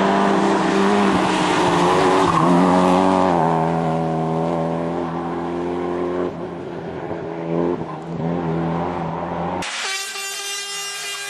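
A rally car's engine at full throttle through a bend, its note rising and falling in steps as it changes gear and fading as the car drives off. About ten seconds in, the sound cuts abruptly to another rally car's engine, thinner and higher.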